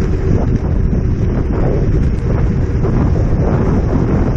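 Loud, steady wind buffeting a head-mounted action camera's microphone while riding an electric scooter at speed: a continuous rumbling roar.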